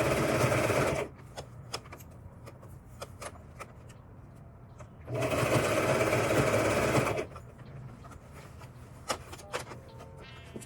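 Brother electric sewing machine stitching an elastic band onto wig lace in two runs: one stopping about a second in and another of about two seconds in the middle. Between the runs come small clicks and handling sounds as the fabric is repositioned.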